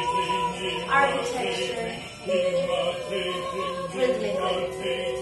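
Vocal music: voices chanting long held notes that slide up and down in pitch, with a short break about two seconds in.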